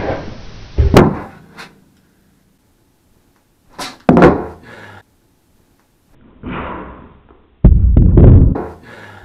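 A wheelless skateboard deck snapped and flipped on carpet, three tricks in a row: a brushing scrape of wood on carpet, then heavy thuds as the deck and the rider's feet land. The loudest and longest thudding is near the end.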